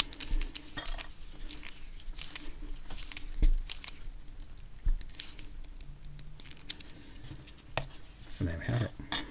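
Small clicks and taps of a hex-bit screwdriver driving a stainless cap screw into a plastic handheld case while the case is handled, with one sharper knock about three and a half seconds in.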